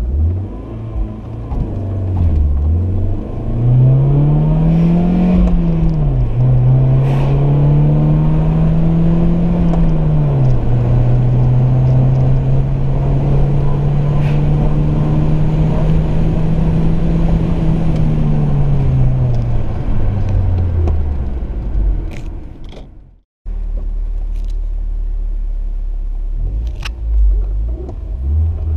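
BMW E36 318i four-cylinder engine through a sport exhaust, accelerating through the gears: the revs climb and drop back twice at gear changes, hold steady for several seconds, then ease off. After a brief cut it runs steadily again and revs up near the end.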